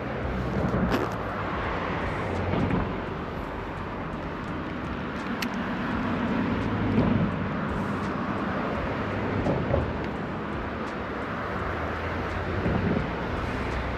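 Steady low outdoor rumble of background noise that swells and fades slowly, with a few faint brief ticks.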